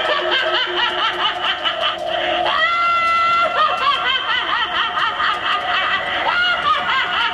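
High-pitched recorded laughter from an animatronic toy's speaker: a long run of rapid cackling 'ha' syllables, with one held, shrieking note about two and a half seconds in.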